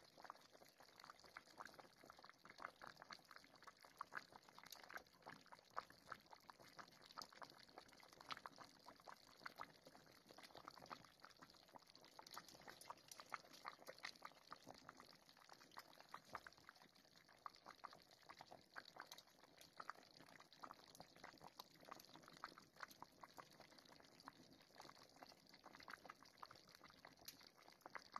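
Tomato sauce simmering in a pot of stuffed zucchini, eggplant and potatoes: a faint, dense, irregular bubbling and popping.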